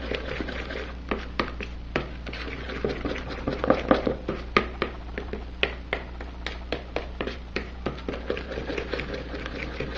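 Metal spoon stirring cake batter in a bowl, clicking and tapping against the bowl's side in irregular strokes, a few a second.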